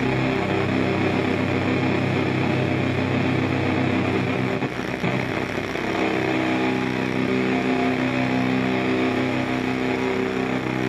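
A distorted, amplified band instrument droning on held notes, as between songs at a live rock show; the pitch shifts to a new set of notes about five seconds in.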